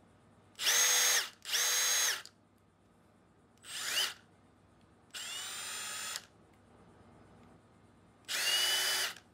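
Milwaukee M18 Fuel 2853-20 impact driver, converted to a 1/2-inch anvil, run with no load in five short trigger pulls. The motor whines at a different pitch from burst to burst, and the third pull is a brief blip rising in pitch.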